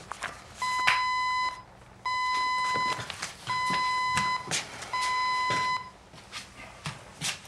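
Electronic alert beeping: four long, even beeps at one steady high pitch, about a second and a half apart, with footsteps and light knocks of someone moving around between them.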